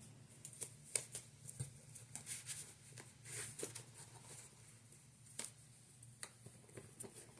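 Faint handling of tarot cards: scattered soft clicks and ticks as cards are moved and laid down, over a low steady room hum.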